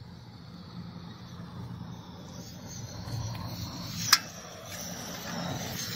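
Portable gas stove burner hissing steadily under a pot of water heating toward the boil, with one sharp click about four seconds in.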